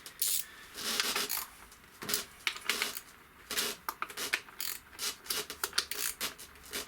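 Hands working on top of a car engine: irregular clicks, taps and short scrapes of plastic and metal parts as the ignition coils are unclipped for removal.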